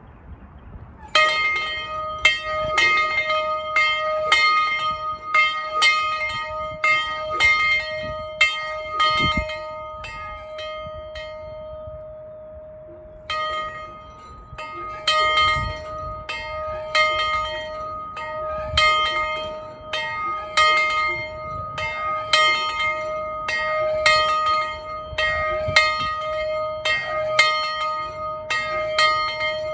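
Steam locomotive's bell rung by its bell rope, clanging about twice a second. The strokes stop about a third of the way in and the bell rings out for a couple of seconds before the ringing starts again.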